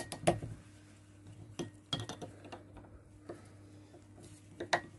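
Long nose pliers clicking and clinking against the crimped metal cap of a glass beer bottle as the cap's edge is gripped and bent upwards, bit by bit, to pry it off. The clicks come irregularly, with a loud pair at the start and another near the end.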